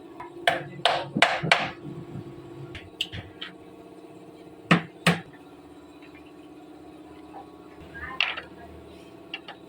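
Hammer blows: four quick strikes in the first couple of seconds, two more about halfway, and one near the end, over a steady low hum.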